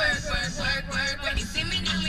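Hip-hop music with vocals over a beat.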